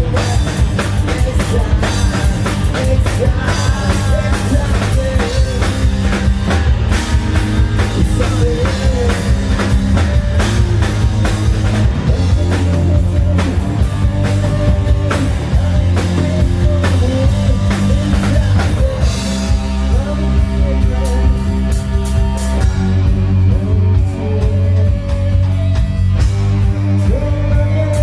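Hard rock band playing live through a club PA: drum kit, distorted guitars and a sung vocal line, recorded from the audience.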